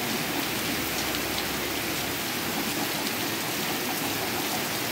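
Heavy rain falling steadily on a backyard: an even hiss with scattered drop ticks.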